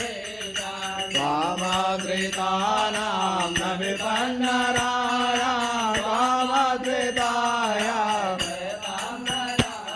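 A voice chanting a Sanskrit mantra in a slow, melodic recitation over a steady low drone, with a few sharp taps scattered through it.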